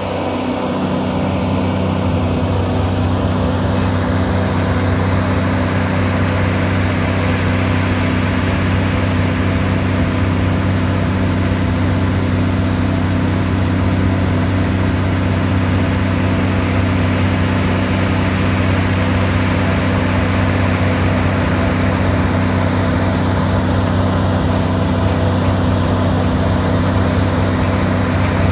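Rubblemaster RM MXJ1100 mobile jaw crusher running and crushing rock: a loud, steady machine drone with a constant low hum under a dense rattling noise of material going through the crusher and along the conveyor.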